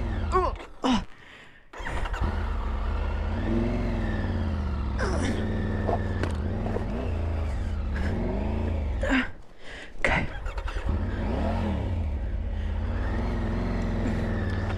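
Motorcycle engine revving up and dropping back over and over, a rise and fall every second or two, as the bike struggles for grip on a loose, rocky track, with a few short knocks.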